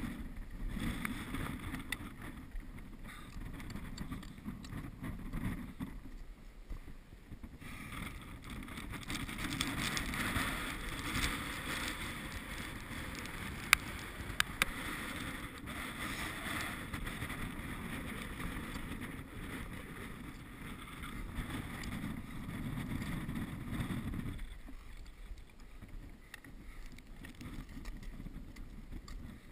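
Wind buffeting an action camera's microphone on an exposed ridge, a steady rumble with a brighter hiss through the middle that drops away near the end. Two sharp clicks just past halfway are the loudest sounds.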